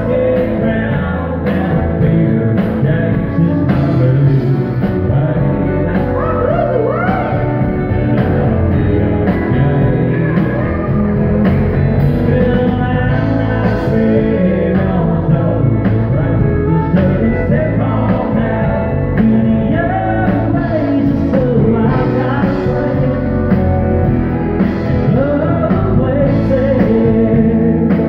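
Live country band playing a song: a man singing over acoustic and electric guitars, pedal steel guitar, drum kit and keyboard.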